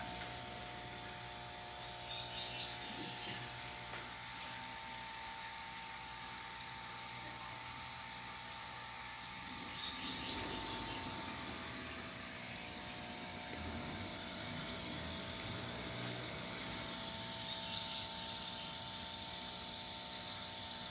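Aquarium equipment humming steadily with water bubbling in the tank. A few faint high chirps come through about two seconds in, around ten seconds and near the end.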